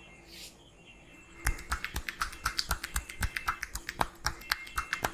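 A barber's hands striking a client's head in a tapping head massage: a fast run of sharp slaps, about five or six a second, starting about a second and a half in.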